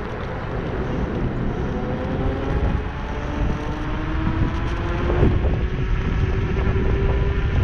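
Scooter's motor whining while riding, its pitch rising slowly as it gathers speed, over a steady rush of wind on the microphone. A brief knock about five seconds in.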